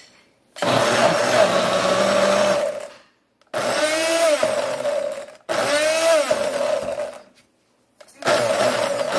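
Single-serve personal blender pulsed four times in short runs of about two seconds, chopping a thick mix of avocado, spinach and green peas. Within each run the motor's whine sags in pitch and recovers as the load bogs it down.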